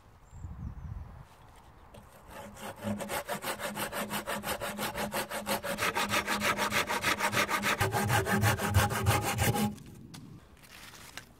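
Folding pruning saw cutting through a dead wood branch with fast, even back-and-forth strokes, starting about two seconds in and stopping abruptly near the end.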